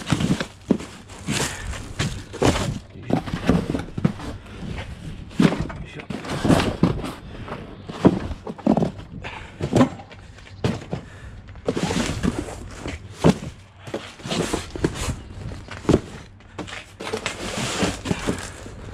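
Irregular thuds and knocks of delivery boxes being shifted and carried, with footsteps and a few longer noisy stretches of handling.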